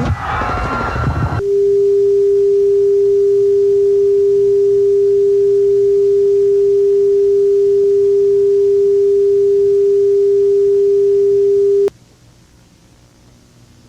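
A single steady low-pitched electronic tone, a pure test tone from a broadcast, held for about ten seconds and then cut off abruptly to a faint hiss of static. It is preceded by a louder wavering siren-like sound that breaks off about a second in.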